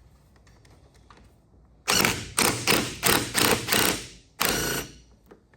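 The Firebird's front wiring harness being worked loose and pulled free: a quick run of sharp rattling clatters, about six in two seconds, then one longer scraping rattle.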